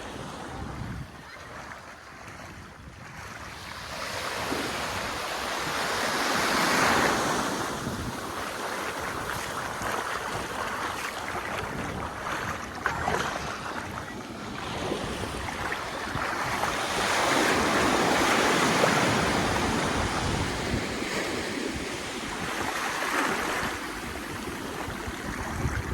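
Sea waves breaking and washing onto the shore, rising and falling in long surges several seconds apart.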